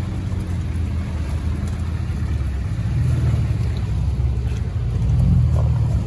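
Off-road vehicle's engine running at low revs, a low steady drone that swells a little about halfway through and again near the end.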